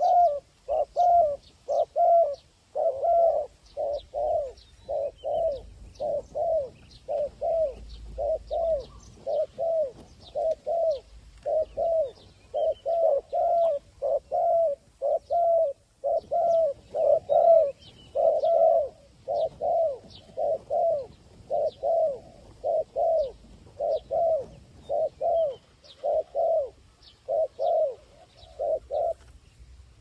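Dove cooing over and over in a steady run of short calls, a little more than one a second, that stops about a second before the end: the bow-coo of a male displaying at another dove. Faint chirps of small birds sound high above.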